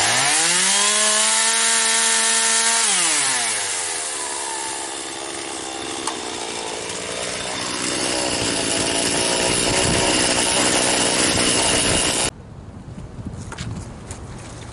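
Poulan 4620 two-stroke chainsaw revving up to full throttle. After about three seconds its pitch drops as it bogs down into the wood, and it saws for several seconds before the sound cuts off abruptly near the end.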